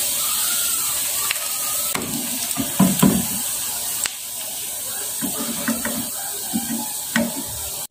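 Salted fish frying in hot oil, the oil sizzling with a steady hiss, and a metal spoon knocking against the pan a few times as the fish is lifted out half-fried.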